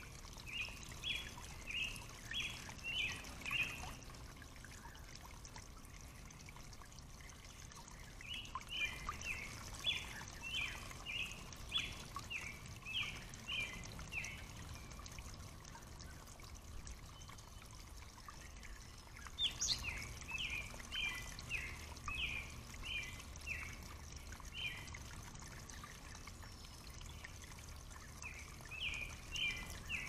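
A songbird singing runs of quick, clear notes, each run a few seconds long and repeated several times, over the steady trickle of a shallow, rocky stream.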